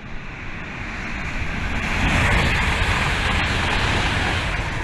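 A rushing swell of noise over a deep rumble, building to a peak about two seconds in and then easing off, like a whoosh sound effect under an animated title.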